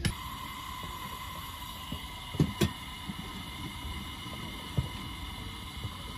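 Vintage Coleman 502 single-burner white-gas stove running steadily, with a cast-iron skillet knocking twice on its grate about two and a half seconds in and once more, more lightly, near five seconds.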